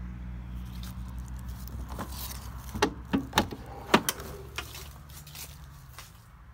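Door of a Land Rover Series IIA station wagon being handled and opened: a quick cluster of sharp metallic clicks and knocks about three to four seconds in. Under it runs a low steady hum that fades toward the end.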